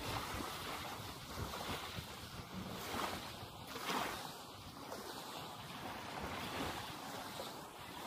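Small waves washing up on a sandy shore, with wind buffeting the microphone. The surf swells briefly about three and four seconds in.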